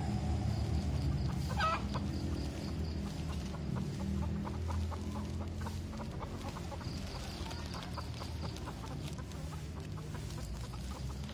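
Chickens clucking, with a short rising call about two seconds in. A plastic bag crinkles in short ticks as it is wrapped and tied around the coconut-fibre ball of an air layer.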